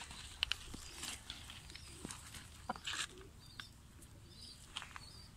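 Faint high, short bird chirps in the yard, with a few soft knocks and a brief splash about three seconds in as a rooster's feet are lowered into a bucket of water.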